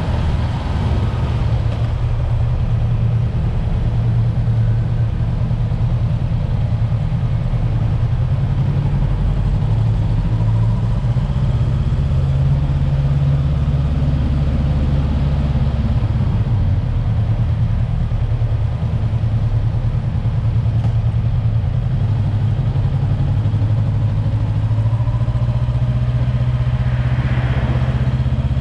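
Honda 400X's parallel-twin engine running under way on the road, a steady low drone whose pitch shifts a few times with the throttle. A rushing hiss builds near the end.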